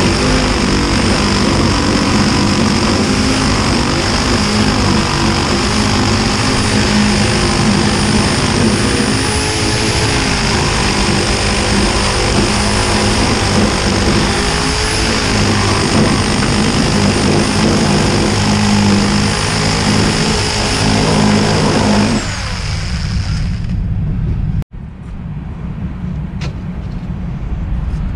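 Reciprocating saw running steadily with a high motor whine, cutting apart an air conditioner's copper-and-aluminium coil; it stops about 22 seconds in, and quieter clicks and clatter follow.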